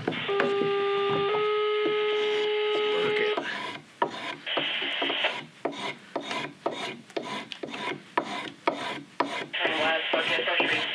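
Spokeshave shaving green sycamore, smoothing out an axe mark on a belt cup. It opens with a held squeal of about three seconds that steps up slightly in pitch partway through. Then come quick short scraping strokes, about two a second, and near the end a more continuous scrape.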